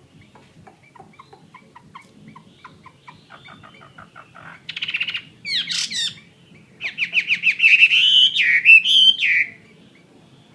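Chinese hwamei (họa mi) singing: a run of short, quiet notes that quickens and builds, then from about halfway two loud phrases of rapid trills and whistled, gliding notes, stopping shortly before the end.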